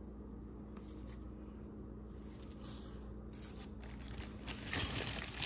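Costume jewelry being handled and sorted by hand: faint small clicks and scrapes, growing louder near the end with light metal pieces clinking and rustling together. A steady low hum runs underneath.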